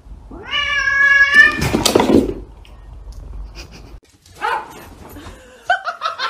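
Two domestic cats in a standoff and fight: one long, level yowl breaks into a loud, harsh screech about a second and a half in, followed by a few short yowls near the end.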